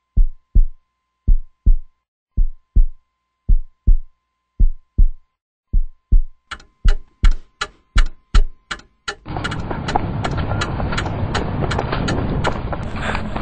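Heartbeat sound effect on a film soundtrack: paired lub-dub thumps about once a second over a faint steady tone. From about six seconds in the beats quicken and sharp ticks join them, and about nine seconds in a dense, loud wash of sound cuts in.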